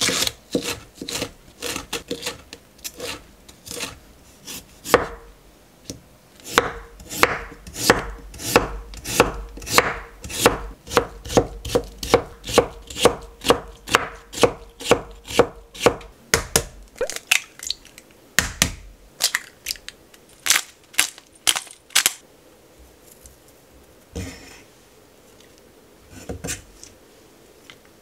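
Chef's knife chopping on a wooden cutting board: steady knife strokes, about two to three a second, as vegetables are minced and potato is cut into thin strips. The chopping stops about 22 seconds in, leaving only a few scattered knocks.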